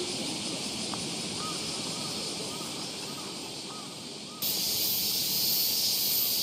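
Crows cawing: a run of about six short caws, roughly two a second, over the steady high hiss of a summer cicada chorus in the trees. The hiss becomes suddenly louder about four seconds in.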